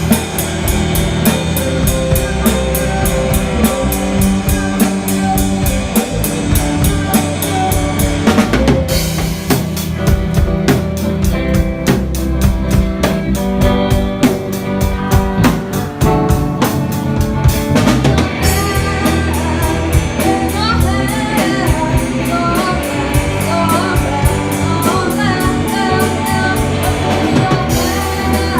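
Live rock band playing through a PA, the drum kit keeping a steady beat under bass and other instruments, with some singing.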